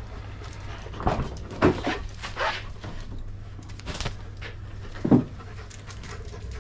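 German Shepherds panting, with a few short, louder sounds: a cluster about a second in and single ones at about four and five seconds in.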